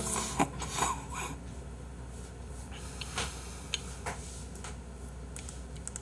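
A few soft, scattered clicks over a low steady hum, with a short rush of noise in the first second.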